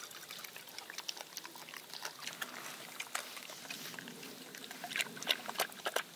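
Milk poured from a plastic jug into a small glass bowl, then a dog lapping the milk from the bowl, a quick run of short wet laps that grows louder near the end.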